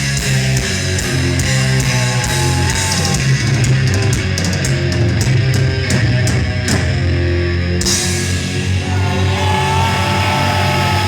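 Live heavy metal band playing: distorted electric guitars, bass and drums. A run of fast, evenly spaced drum hits comes in the middle, and long held guitar notes follow near the end.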